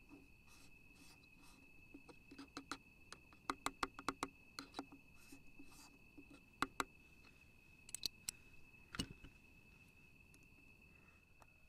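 Sharp small clicks and taps of a metal coffee tool being twisted, lifted and handled on a metal camp table, thickest a couple of seconds in and again near 7 to 9 seconds. Behind it a steady high insect trill.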